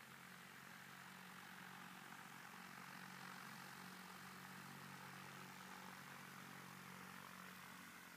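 Light propeller aircraft's piston engine running faintly at a distance, a steady hum that swells a little and eases off near the end.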